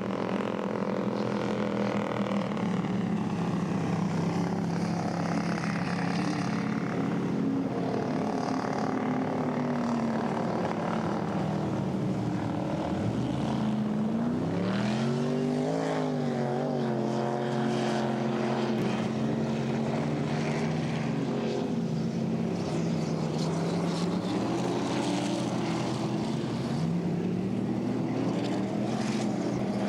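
Racing boat engines running, a steady drone of engine tones. About halfway through the pitch drops sharply and then climbs back as the throttle comes up again, and it rises once more near the end.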